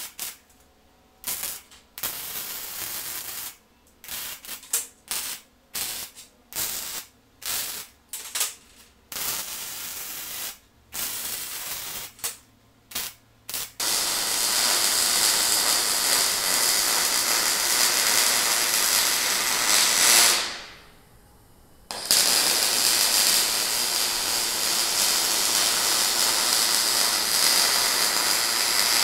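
MIG welding arc crackling on steel tube. It comes first as a quick string of short tack welds, each lasting under a second, then as two long continuous weld runs with a short break between them, as a steel cap is welded onto a square-tube post.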